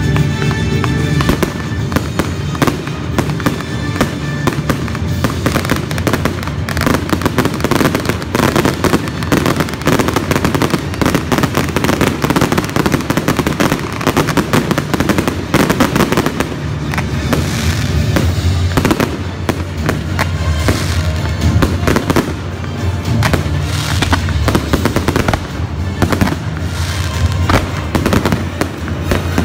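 Fireworks display in full swing: aerial shells and cakes firing and bursting in quick succession, a continuous barrage of bangs and crackle.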